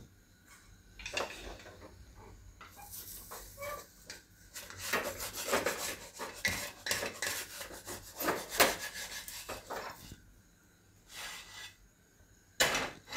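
Wooden spatula scraping and clattering against a tawa on a gas stove, loosening a kulcha that has been roasted stuck to the upturned griddle over the flame. Irregular scrapes and sharp clicks, then a pause and a sharp knock near the end.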